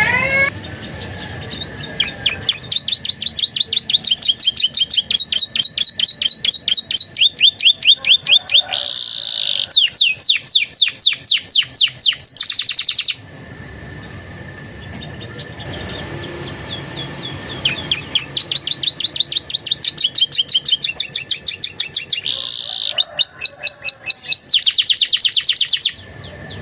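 Domestic canary singing in two long bouts of rapid trills, each a fast run of repeated chirps lasting about ten seconds, with a pause of a couple of seconds between them. Its song is filled with phrases copied from prinias, the ciblek and prenjak.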